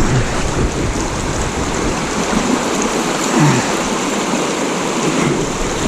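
Steady rush of high, fast-flowing creek water, with a heavy low rumble underneath.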